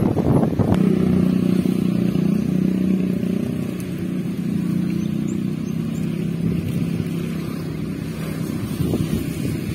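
An engine running steadily with a low, even hum, after a brief patch of rustling or handling noise in the first second.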